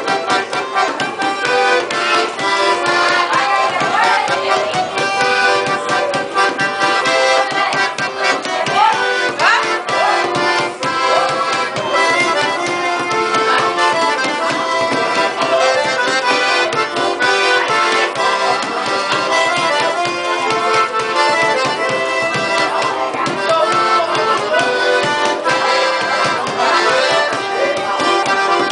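Sanfona (accordion) playing a lively tune in sustained chords, with rapid percussion tapping along throughout.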